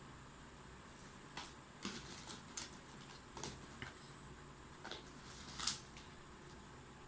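Irregular light scratching, rustling and clicking from cats pawing at a hidden toy, starting about a second in and stopping a little before the end, with the loudest scratch near the end.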